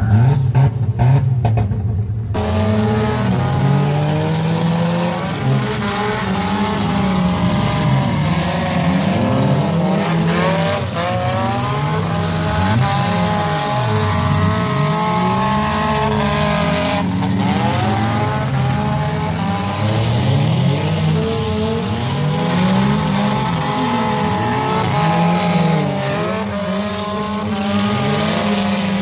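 Engines of several figure-8 race cars, battered old sedans, revving up and backing off as they race, their pitches rising and falling over one another without a break.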